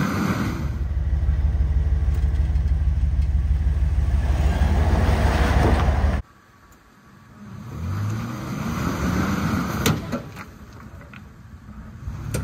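Toyota 4Runner's engine running steadily under load as the truck crawls up a rocky ledge. About six seconds in it cuts off suddenly; after a short lull the engine revs up again, with a few sharp knocks near the end.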